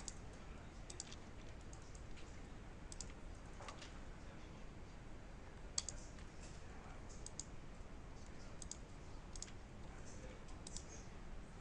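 Faint, irregular clicks of a computer mouse, a dozen or so scattered through, over a low steady hum.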